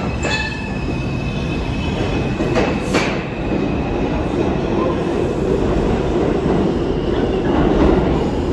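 R142-family New York City subway train running through the station with a steady heavy rumble. A thin high wheel squeal fades out in the first three seconds, two sharp clacks of wheels over rail joints come about two and a half and three seconds in, and the rumble grows louder near the end.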